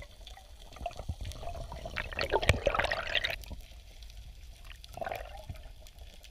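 Underwater sound picked up by a diving camera: water moving and bubbling against the housing, with a scatter of small crackling clicks throughout. It is loudest for about a second and a half, two seconds in, with a smaller surge near the end.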